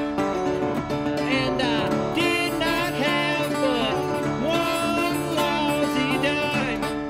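Background country-style music: acoustic guitar with a wavering lead melody line over it.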